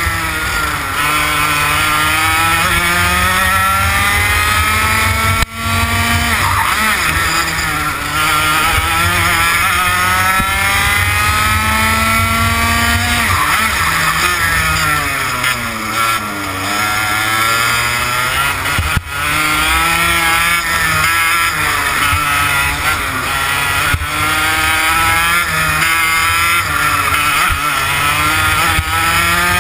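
TKM BT82 Extreme two-stroke kart engine at racing speed, its pitch climbing as it accelerates and dropping back when the throttle comes off for corners, over and over. The deepest drop, near the middle, is a slower corner, and two short sharp breaks come about five seconds in and again near two-thirds through.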